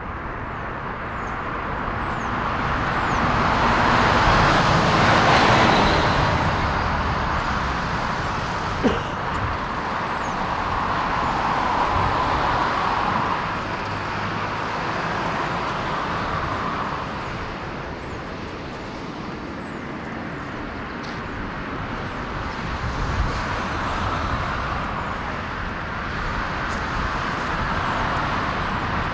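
Boeing 787-9 jet engines at takeoff thrust, a steady rushing noise that swells to its loudest about five seconds in, then eases and rises again more gently as the aircraft climbs away. A single sharp click near nine seconds in.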